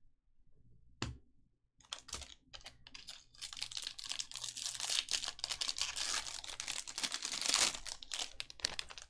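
A pack of Bowman baseball cards being opened by hand: one sharp click about a second in, then dense crinkling and tearing of the pack wrapper and rustling of the cards for several seconds, stopping just before the end.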